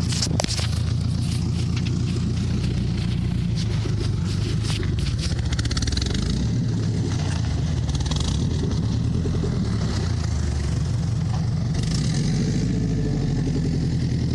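Engine of a Subaru-based 'truckaru' running steadily, its pitch shifting a little, with scattered clicks and knocks in the first few seconds.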